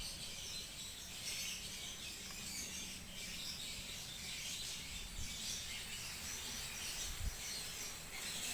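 Background ambience of birds chirping and insects trilling over a steady hiss, with a few brief low thumps, around five and seven seconds in.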